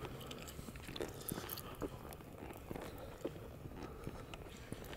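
Faint footsteps crunching on leaf litter and grass, with irregular soft clicks and crunches.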